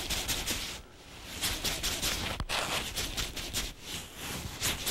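Rustling of a waterproof fishing suit and wind on the microphone as an angler reels a hooked bass up on a jigging rod, in uneven swishes with a brief lull about a second in.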